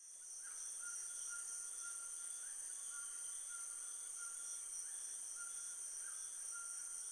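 Night-time cricket chorus: a steady high-pitched insect trill, fading in at the start, with a lower trill that breaks off and starts again every second or so.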